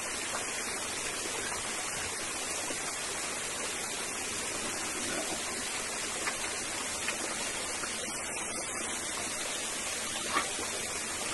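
Small waterfall: water running and splashing steadily over rocks.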